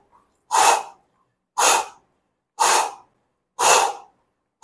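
A man's sharp, forceful exhalations while doing mountain climbers: four breaths pushed out about one a second, one with each knee drive, with silence between them.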